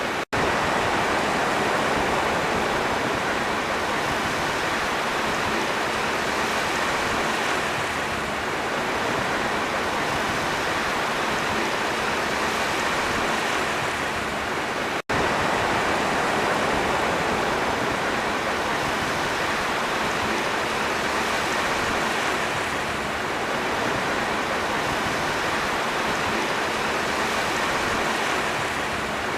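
Sea surf washing ashore in a steady, even rush, with two momentary cut-outs, one just after the start and one about halfway through.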